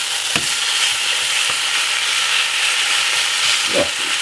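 Pieces of marinated lamb sizzling steadily as they brown in a small saucepan. A few light clicks of metal tongs against the pan come as the pieces are turned.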